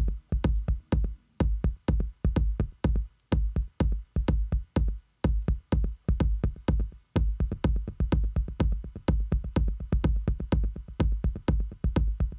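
A looping electronic drum beat played from Native Instruments Maschine: a steady pattern of about four hits a second over a deep kick, with a beat delay being tried on the tom.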